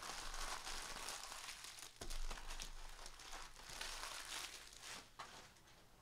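Crinkling and tearing of trading card pack wrappers as Panini basketball card packs are ripped open and handled, with a single sharp tap about two seconds in.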